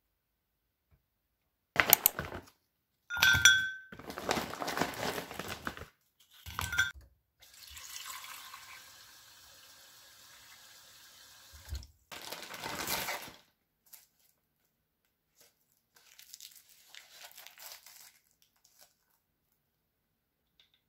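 Kitchen tap running into a glass tumbler in a stainless steel sink: short bursts of splashing, then a steady stream for about four seconds while the glass fills.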